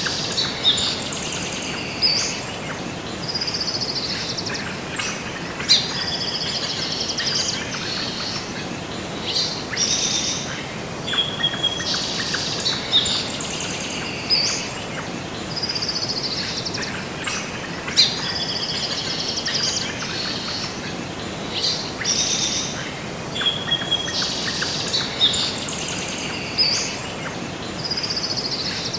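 Several songbirds chirping and trilling over a steady background hiss; the same run of calls seems to repeat about every 12 seconds, like a looped nature-sound track.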